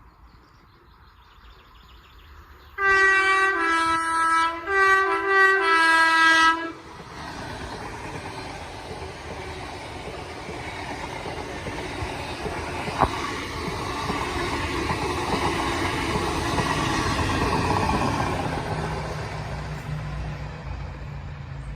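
Passing train's two-tone horn sounding a high-low pattern twice, loud, for about four seconds, starting about three seconds in. Then the train passes: a rushing rail rumble that builds for about ten seconds and fades near the end.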